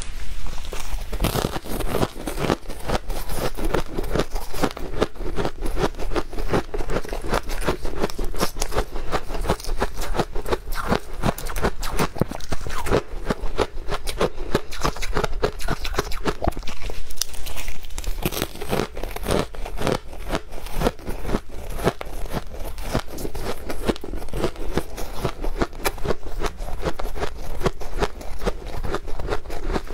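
Soft, powdery shaved ice being bitten and chewed close to a lapel microphone: a dense, rapid, uneven run of crunches.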